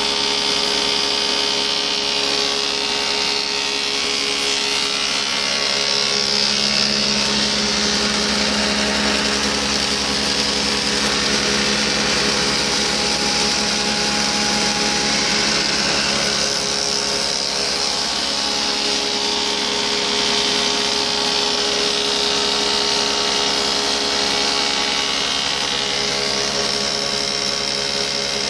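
Woodmaster planer-molder running steadily under load, its cutterhead milling a wooden board into molding as the board feeds through.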